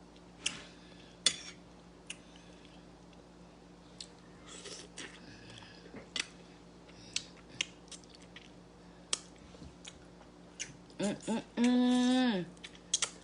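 Close-up eating sounds: chewing and smacking of stewed fish head, with sharp mouth clicks scattered every second or so. Near the end the eater makes a short, drawn-out voiced sound.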